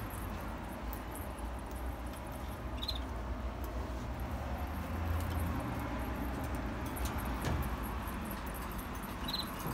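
Steady low room hum with faint scattered ticks, and two brief high-pitched squeaks, one about three seconds in and one near the end.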